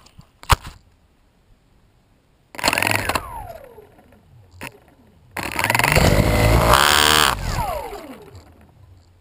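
A PVC quadcopter's electric motors and propellers spin up in two short erratic bursts while it sits in the grass, the second longer, each winding down with a falling whine. A sharp click comes about half a second in.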